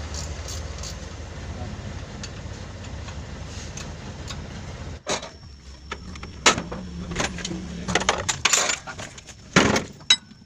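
A steady low hum stops abruptly about halfway through, followed by scattered metallic clinks and knocks of tools and engine parts being handled.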